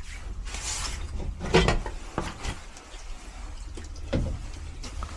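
Sheet-metal access panel of an air handler being worked loose and pulled off: a short scraping rush about half a second in, then scattered metallic knocks and clicks.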